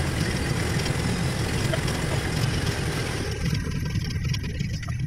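Steady low rumble of a sailing catamaran under way, with a rushing hiss over it that drops away about three seconds in.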